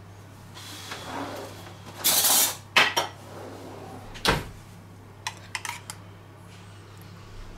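Stainless-steel saucepan and metal spoon clattering. There is a scrape about two seconds in, then a few sharp knocks, then light clinks of the spoon against the pan after about five seconds.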